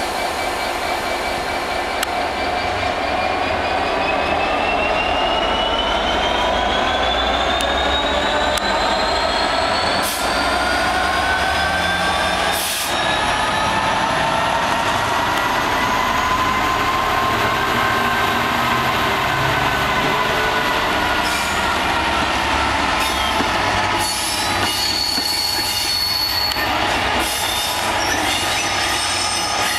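Pair of GBRf Class 66 diesel locomotives passing slowly: their wheels squeal in long high-pitched tones that slowly rise and fall, over the low rumble of the two-stroke V12 diesel engines. From about two-thirds of the way through, the wheels click sharply over rail joints and points.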